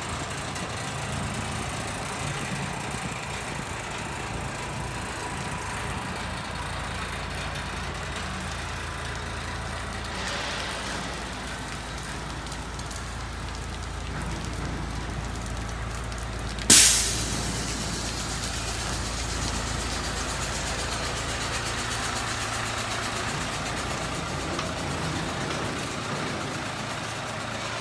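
Isuzu water tanker truck's diesel engine idling with a steady low hum. About two-thirds of the way through comes a single sudden loud burst that dies away quickly.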